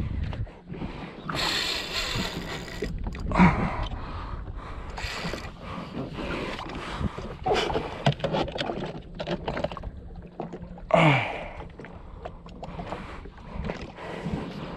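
Gear being handled on a jet ski: irregular knocks, bumps and rustling, over a faint steady low hum. There is a louder knock at the very start and a short sound dropping in pitch about eleven seconds in.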